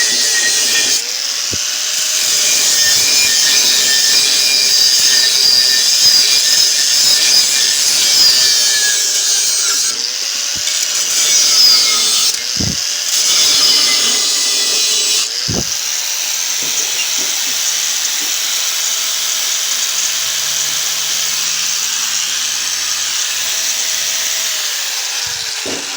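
Angle grinder cutting into the steel shell of a refrigerator compressor, a loud steady grind. The motor bogs and picks back up several times under load and winds down near the end.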